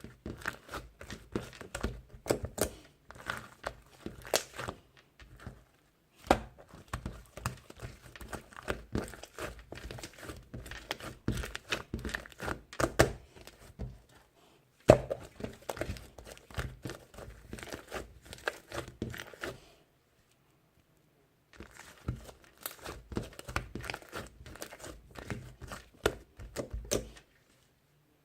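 Close, rapid crinkling and clicking of something being handled, in stretches broken by short pauses, with one sharper knock about halfway through.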